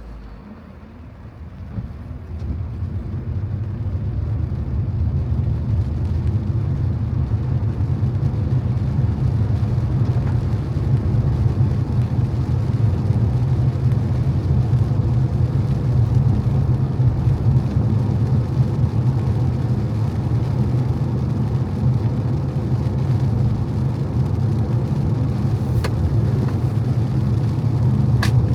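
Car driving on wet streets: a low, steady rumble of engine and tyres with a noisy hiss above it. It rises over the first few seconds as the car picks up speed, then holds steady, with a few faint clicks near the end.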